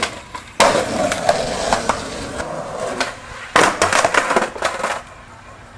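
Skateboard jumping a six-stair: a loud slam on the concrete about half a second in, then urethane wheels rolling with small knocks. A second burst of clattering and rolling comes about three and a half seconds in and stops abruptly near the end, as the board rolls away from a bailed landing.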